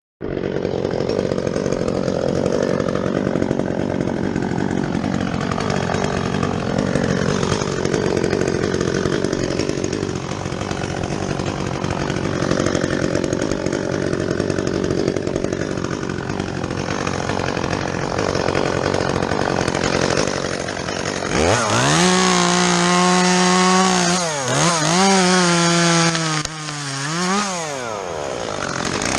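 Chainsaw cutting into fir wood with a dull chain, the engine note sagging and wavering under load. About two-thirds of the way through it comes free and revs up, dropping and rising again several times.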